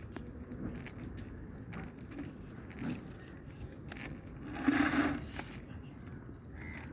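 Weighted edge of a cast net clinking and scraping on asphalt as the net is gathered up, in scattered small clicks, with a brief louder patch about five seconds in.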